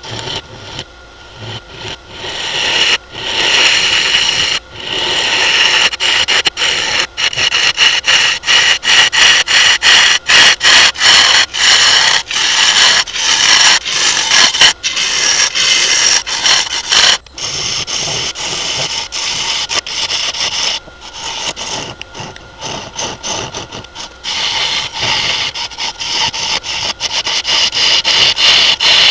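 A turning tool cutting into the inside of a wooden bowl spinning on a Laguna wood lathe: a rough scraping hiss of shavings peeling off. It comes and goes in short stops and starts as the tool enters and leaves the cut, with quieter stretches near the start and about two-thirds through.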